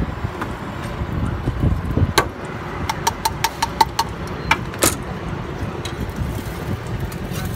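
A steady low traffic rumble with metal clinks from a cook's steel utensils at a flat-top griddle, including a quick run of about six clinks a second for roughly a second in the middle.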